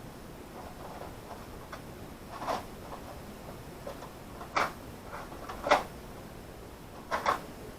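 A few sharp clicks and light rattles of small parts being handled while wiring, spaced a second or more apart.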